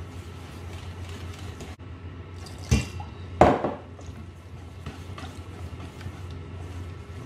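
A wire balloon whisk beating plain flour and water into a wet pancake batter in a stainless steel bowl, making continuous wet stirring and light scraping. Two sharp knocks come close together about three seconds in, and the second is the loudest. A steady low hum runs underneath.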